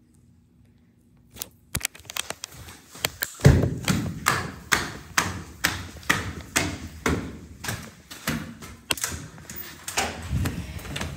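Footsteps thumping about two a second, beginning a second or so in, with sharper knocks and clatter among them; one heavy thump stands out early in the run.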